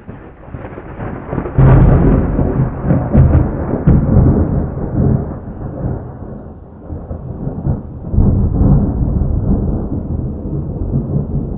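Lightning-cracking thunder sound effect: a sharp, loud crack about a second and a half in, then long rolling rumbles, which surge again about eight seconds in.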